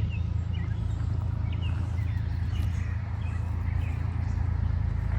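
Birds chirping in short calls over a steady low rumble.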